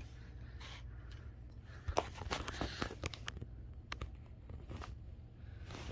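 Handling noise: soft rustling on a bedsheet with light taps and clicks, bunched about two to three seconds in, as a small model airliner is set down on the bed.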